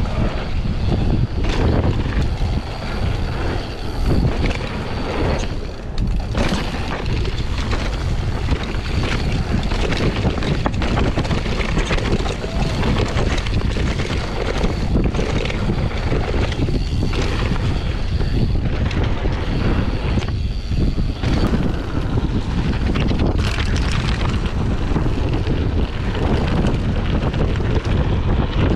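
Mountain bike ridden fast down a dirt trail, heard from a camera on the rider: heavy wind buffeting on the microphone, tyres rolling over dirt and gravel, and frequent clicks and knocks as the bike rattles over bumps.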